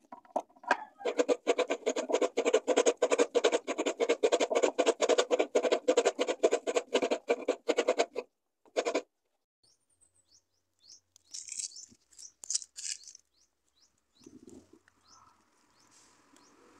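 Coconut flesh being scraped out of a half shell on a bench-mounted coconut grater: quick rasping strokes, about five a second for some seven seconds, with one more short burst after a brief stop. Faint scattered clicks and rustles follow.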